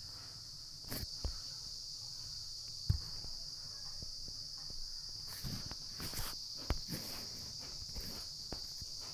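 Quiet background with a faint, steady high-pitched hiss-like drone and a scattered handful of soft clicks and knocks.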